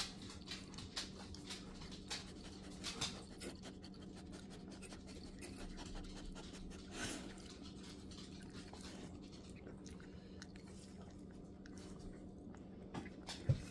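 Chihuahua puppy eating from a stainless steel bowl: quick soft clicks and smacks of chewing and of food and teeth against the metal, busiest in the first few seconds, with one louder knock near the end. A faint steady hum runs underneath.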